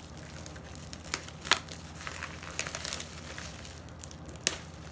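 Plastic bubble wrap crinkling and crackling as scissors cut through it, with a few sharp clicks, the loudest about a second and a half in and near the end.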